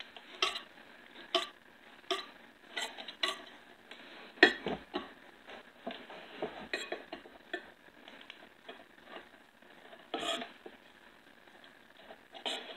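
Fork and knife clinking and scraping on a dinner plate in irregular taps, the loudest about four and a half seconds in.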